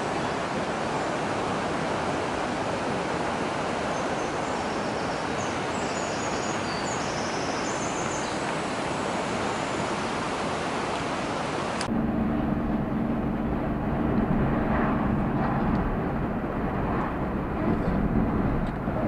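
River water rushing through a narrow gorge, a steady roar. About twelve seconds in it cuts off abruptly to a vehicle engine running with a steady low hum.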